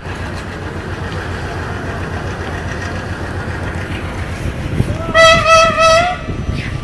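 Steady low rumble of a train running into the station, then about five seconds in a locomotive horn sounds one loud, slightly wavering note for just over a second.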